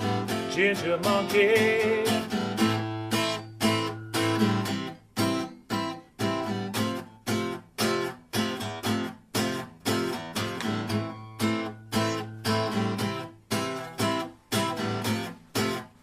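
Guitar strumming chords in a song's instrumental break. A sung note from the end of the chorus fades in the first couple of seconds, then the strums fall into a steady rhythm of short, clipped chords.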